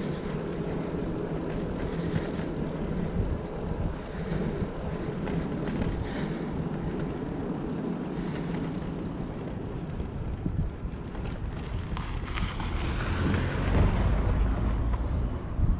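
Wind rushing over the microphone of a moving bicycle, with low road rumble; the low rumble grows louder for a few seconds near the end.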